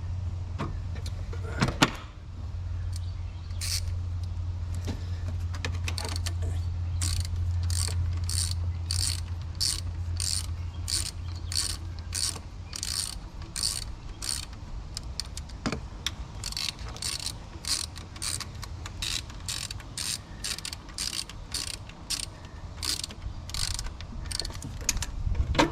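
Hand ratchet wrench clicking in a steady rhythm of about two strokes a second as bolts are run in on the new alternator's mounting, over a low steady hum that fades about halfway through.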